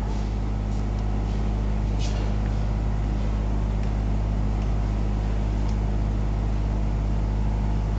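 Steady low machine hum with a few faint light clicks.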